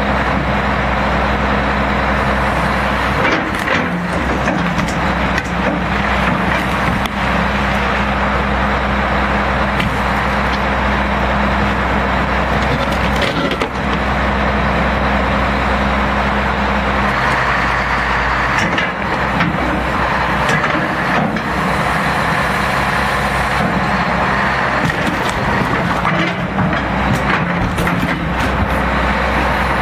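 Excavator and truck engines running steadily. In the second half there are scattered knocks and cracks as the excavator bucket presses on a fibreglass boat hull and breaks it.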